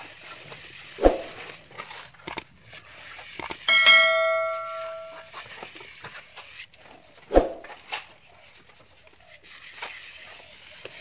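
A bright metallic ding that rings for about a second and a half, just after a couple of sharp clicks, near the middle. A dull thud comes about a second in and another after the ding.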